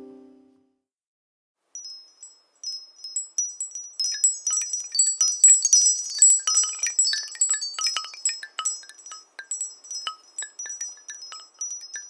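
Nokia E5-00/E7-00 ringtone made of high, glassy wind-chime tinkles: a few scattered strikes at first, then a dense shower of quick overlapping chimes that thins out again near the end. The low notes of the previous tone fade out in the first half-second.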